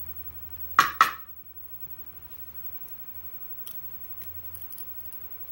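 Two sharp metallic clinks in quick succession about a second in, then a few faint light ticks: small metal lock parts and tools being handled while a Euro cylinder's pins and springs are taken out.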